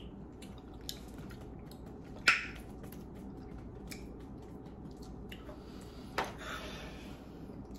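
Quiet room tone with a few scattered small clicks and taps, the loudest about two seconds in, and a brief soft rustle a little after six seconds.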